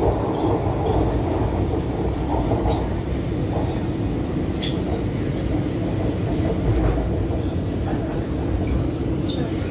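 Steady rumble of wheels and running gear heard from inside a moving MTR Q-Train metro car as it rolls alongside a station platform.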